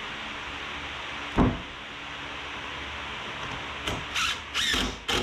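Cordless drill driving screws into a wooden frame in several short spurts about four seconds in, after a single knock on the wood about a second and a half in. A steady hiss sits underneath.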